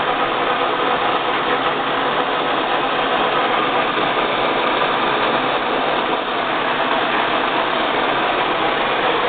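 A 14 x 40 gap bed engine lathe running steadily under power, a constant machine hum with faint steady whining tones.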